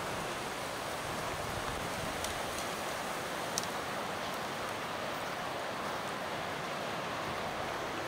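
Steady rush of strong wind, with a few faint clicks about two and three and a half seconds in.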